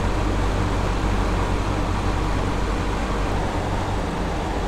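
Steady mechanical hum with an even rushing noise, unchanging throughout.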